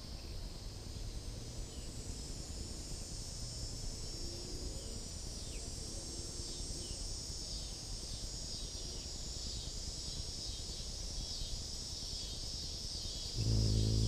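Steady high trilling of an insect chorus over low outdoor background noise. Near the end a hummingbird's wings hum suddenly and loudly close by as it flies in to the feeder.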